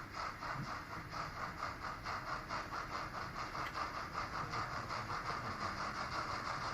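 Model steam locomotive sound decoder for a T20 tank engine playing steam exhaust chuffs through the model's small loudspeaker, a steady rhythm of about four chuffs a second with a hiss.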